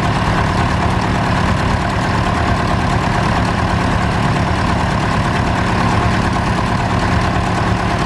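Tractor engine idling steadily, with an even, unchanging note.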